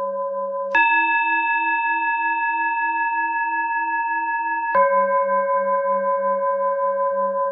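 Tibetan singing bowl tones. A low bowl tone with a slowly pulsing bottom note gives way sharply, about a second in, to a higher bowl tone. The higher tone rings for four seconds, then the low tone comes back sharply near the five-second mark. The higher tone is the cue for a 4-second in-breath and the low tone the cue for the 6-second out-breath.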